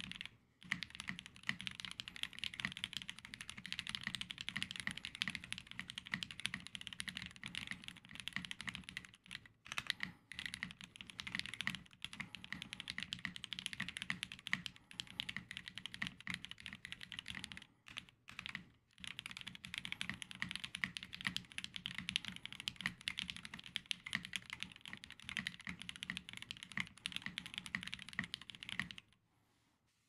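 Fast touch-typing on a KBDFans Tiger Lite mechanical keyboard, an unfoamed plastic-case board with lubed and filmed Alpaca V2 linear switches and GMK ABS keycaps. It is a steady stream of keystrokes at about 115 words a minute, with a few brief pauses, and it stops near the end.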